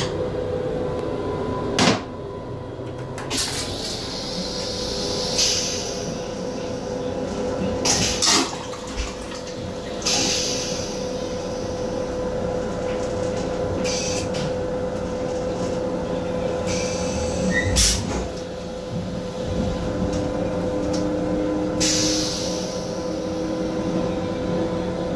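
M7 railcar toilet: the seat is lifted with a sharp knock about two seconds in. Several short hissing bursts of the flush follow over the next twenty seconds, over the steady hum of the running train.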